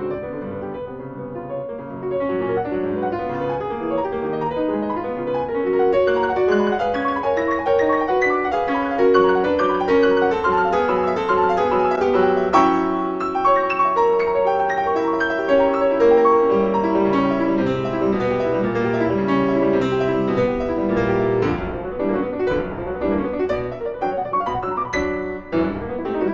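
Classical-style piano music, with many notes moving quickly.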